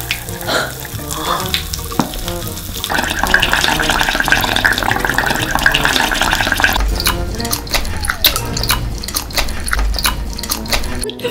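Wet, sticky liquid-candy sounds over background music: green syrup is squeezed from a plastic bottle candy into a bowl, then gummy candy ropes are swished through the syrup and sucked, with many short wet clicks and slurps in the second half.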